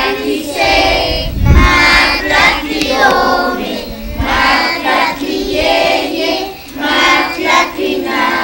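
A group of children singing a song together in unison, with held notes.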